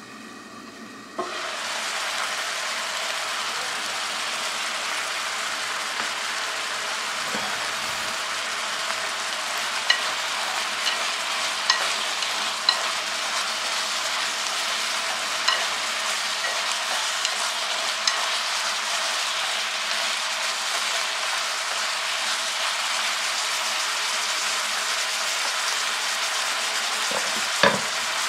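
Chicken and onion frying in an electric hot pot with a steady sizzle that jumps up suddenly about a second in. Chopsticks click against the pot now and then as the pieces are stirred.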